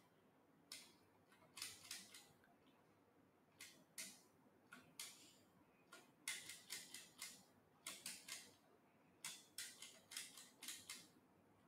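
Faint clicks of a computer keyboard key, the space bar pressed again and again to page through text, at an irregular pace that quickens in the second half.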